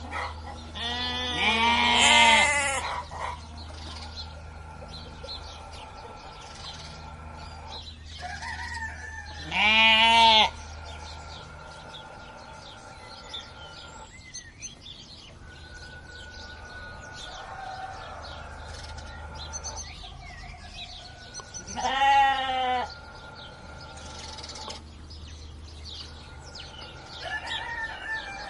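Livestock bleating: three drawn-out, wavering bleats, about a second in, around ten seconds in, and around twenty-two seconds in, the first the longest. A low steady hum sits underneath.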